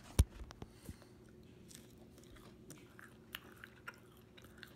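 Someone biting into and chewing a crunchy fried chicken chip close to the microphone: a sharp, loud crunch just after the start, then soft, irregular crunching clicks.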